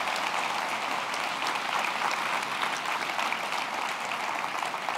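Audience applauding: many hands clapping together in a dense, steady run.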